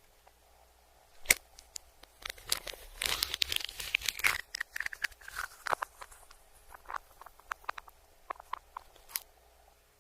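Crunching and crinkling from eating, played backwards. A sharp click comes about a second in, a dense crackling stretch follows around three to four seconds, then scattered clicks thin out near the end.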